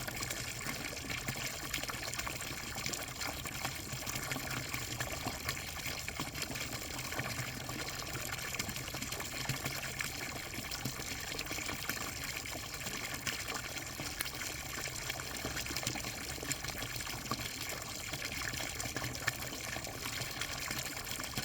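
Water running in a steady flow, an even rushing with no breaks.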